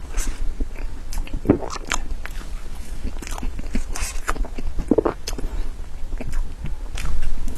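Close-miked eating of soft cream cake: wet, soft chewing and mouth smacks coming in irregular short clicks, with a low steady hum underneath.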